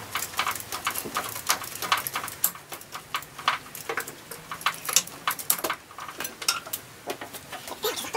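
Irregular light clicks and clinks of hands and tools working on parts in a car's engine bay.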